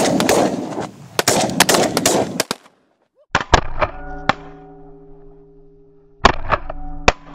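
Shotguns firing at ducks from several hunters: a rapid volley of overlapping blasts in the first two and a half seconds, then a few scattered single shots.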